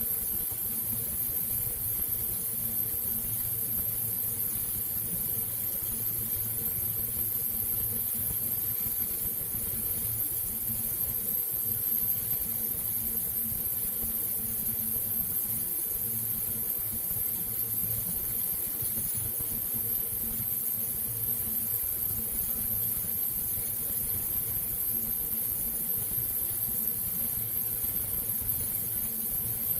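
A steady machine hum with a faint high whine above it, unchanging throughout.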